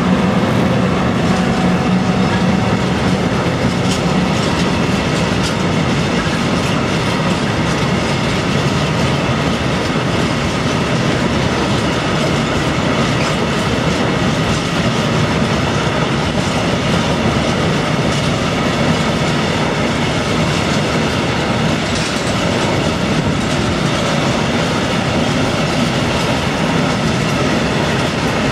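Freight train of tank wagons rolling past close by, with an electric locomotive going by at the start. It makes a loud, steady rumble and clatter of wheels on the rails.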